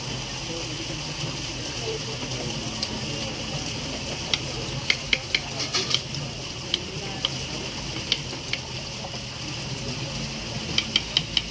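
Metal utensils clinking and scraping against a bowl as guacamole is mashed and mixed. There are scattered sharp clinks, with a quick run of them about five seconds in and again near the end, over a steady high hiss.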